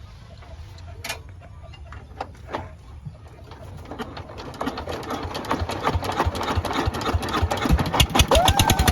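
Small diesel engine being hand-cranked: a few loose clicks, then about four seconds in a train of knocks starts that gets steadily faster and louder as the crank brings the engine up to speed and it begins to fire.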